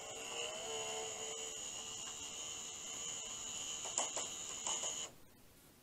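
Benexmart AM43 Bluetooth blind driver motor running with a steady high whine as it pulls the cord to raise a Venetian blind, at a motor speed setting of 35. A few clicks come near the end, and the motor stops suddenly about five seconds in as the blind reaches its upper limit.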